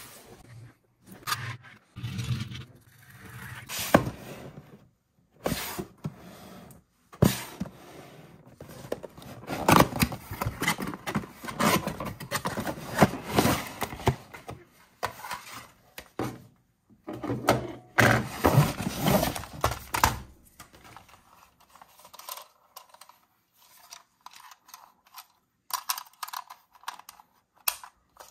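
Cardboard toy packaging being opened by hand: an inner box sliding out of its sleeve with long scraping rubs, mixed with knocks and taps. Quieter clicks and handling of a plastic toy car follow near the end.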